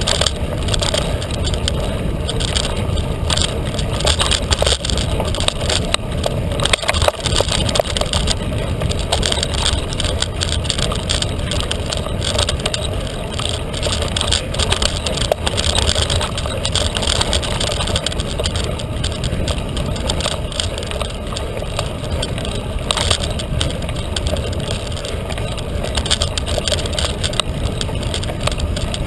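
Felt carbon 29er mountain bike ridden fast on a dirt trail. Tyre and wind noise makes a steady rush, with many small clicks and knocks as the bike rattles over the ground.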